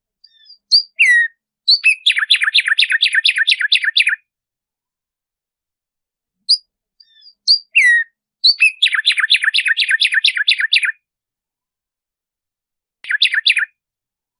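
Black-striped sparrow (tumba yegua) singing: a few short high notes and a falling slur lead into a fast series of evenly repeated notes lasting about two seconds. The song comes twice, with a shorter run of the repeated notes near the end.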